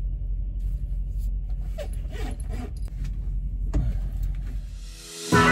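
Steady low rumble of a parked semi-truck heard inside its sleeper cab, with light rustling and a few soft knocks as clothes and items are handled in the bunk. Near the end the rumble drops away and guitar music starts abruptly.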